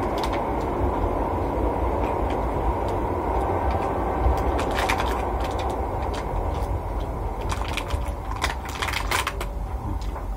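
Crinkling and clicking of a clear plastic food box being handled while rice is picked out of it by hand, in short bursts about five seconds in and again near the end. Under it runs a steady, loud low background noise.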